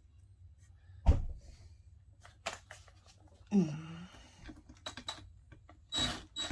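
Metal parts and hand tools clicking and knocking while the gearbox and stuffer of a McCulloch 1-85 chainsaw are bolted back together. There is a sharp knock about a second in, a few lighter ticks after it, and a quick series of short scraping strokes near the end, like a bolt being run in.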